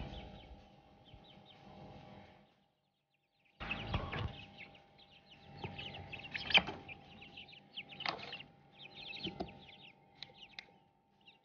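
Young Thai Aseel game chicks peeping: many short, high, falling peeps, with a few sharp knocks among them. The sound cuts out completely for about a second near the start, then resumes.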